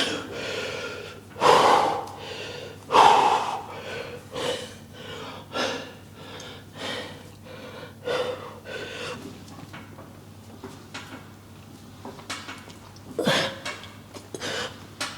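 A man breathing hard and gasping with the strain of a heavy leg press set, with sharp, forceful breaths every second or so. They are loudest in the first few seconds, weaker in the middle, and pick up again near the end.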